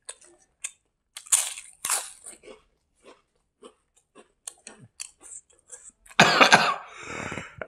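Close-miked chewing and small wet mouth clicks from a man eating rice by hand. About six seconds in comes a loud cough that trails off into throat clearing.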